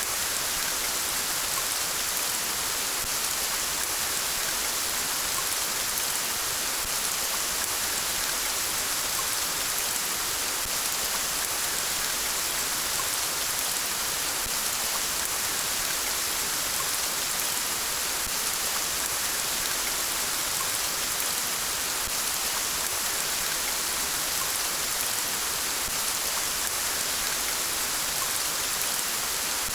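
Steady rain falling, an even hiss of many drops that stays the same throughout with no thunder.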